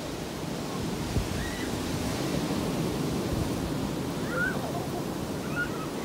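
Surf breaking on a beach with gusty wind on the microphone, a steady wash of noise. A single thump sounds about a second in.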